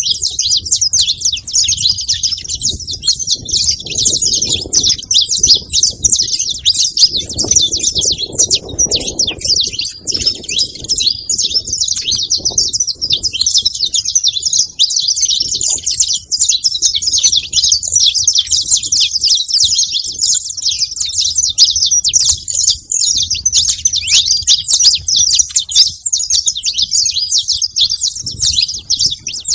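A flock of saffron finches chirping and calling nonstop, many high, quick notes overlapping into a dense chatter.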